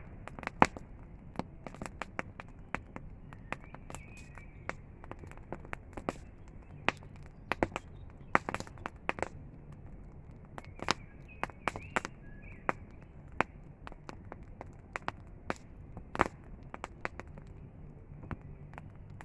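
Campfire crackling, with irregular sharp pops and snaps from the burning wood over a low steady background.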